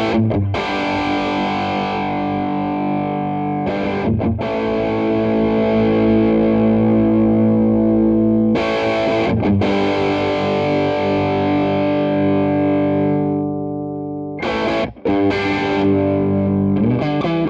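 Electric guitar played through a Donner Morpher distortion pedal on its lower-gain classic setting into a clean amp: distorted chords struck and left to ring for several seconds each, then quicker choppy strumming near the end.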